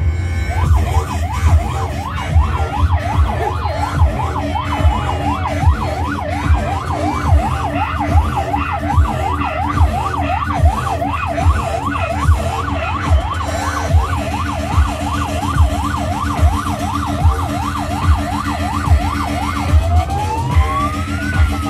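Electronic siren yelping, its pitch sweeping up and down about three times a second over a regular low thump a little more than once a second. Near the end it changes to one slower rising and falling wail.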